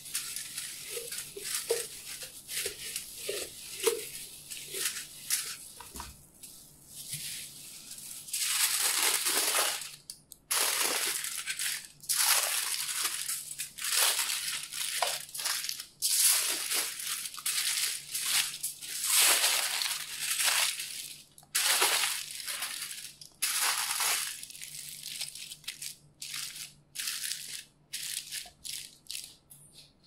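Aluminium foil crinkling and crackling as it is folded and pressed around a whole pumpkin, loud and in long stretches from about eight seconds in. Before that, softer rustles and small clicks of hands handling the foil.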